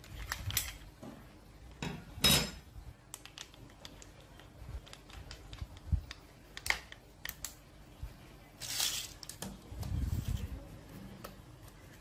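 An angle grinder, switched off, being handled: scattered metallic clicks, clinks and knocks, with short louder rattles about two seconds in and again near nine seconds.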